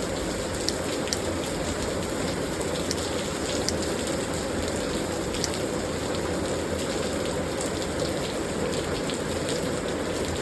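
Heavy rain pouring down in a steady hiss, with scattered sharp drop ticks.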